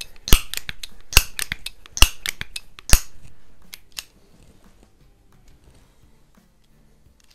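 Crosman 130 .22 multi-pump pellet pistol being pumped. The pump lever snaps shut with a sharp metallic clack about once a second, four strong strokes in the first three seconds, with lighter clicks between.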